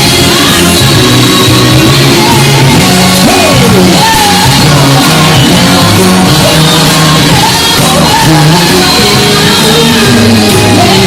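Live pop music with singing, blasting from PA speakers close by. It is very loud and distorted.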